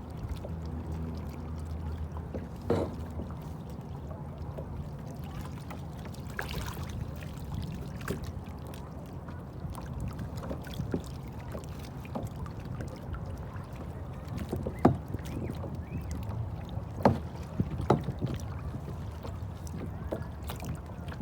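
Kayak being paddled on a lake: a steady low rumble of water and wind, broken by a handful of short, sharp knocks, the loudest two coming about three-quarters of the way through.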